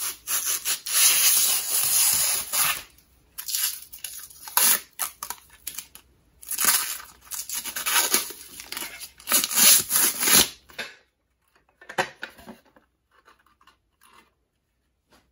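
Clear protective plastic film being peeled off a black plastic monitor stand in several long pulls. It stops about eleven seconds in, and a few small knocks of plastic parts being handled follow.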